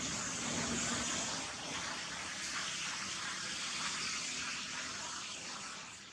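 A steady rushing hiss, brightest in the high range, easing off near the end.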